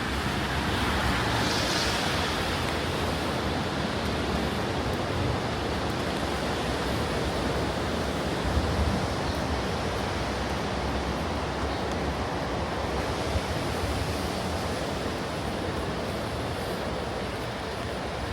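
Steady rain falling, an even hiss with a low rumble underneath. A brighter swell of hiss comes about a second or two in.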